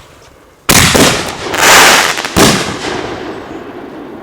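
Fireworks going off: a sharp bang under a second in, a quick run of pops and a loud rushing burst, then another bang about two and a half seconds in, fading out slowly.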